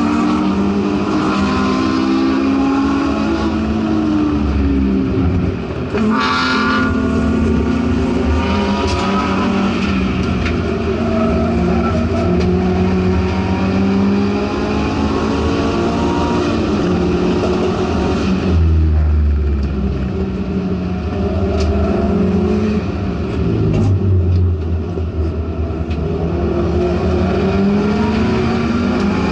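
Subaru STI race car's engine heard from inside the cabin at racing speed, with a brief break about six seconds in. From about two-thirds of the way through, its pitch drops as the car slows for a corner.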